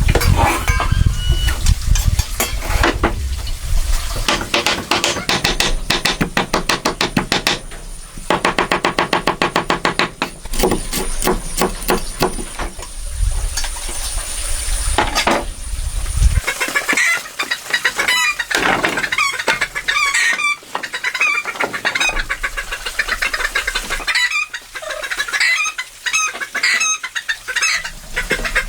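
For about the first half, a run of quick rhythmic knocks or scrapes over a low rumble, which cuts off abruptly. Then chickens clucking.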